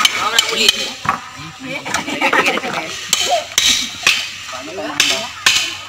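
Bamboo poles and slats clattering and knocking as they are handled and tapped, with several sharp strikes in the second half, under children's chatter.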